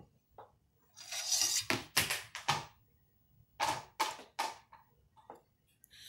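Handling noise from a compressor pressure switch being reassembled by hand: a short scrape about a second in, then two clusters of sharp clicks of the metal bracket and plastic housing, around two seconds and around four seconds in.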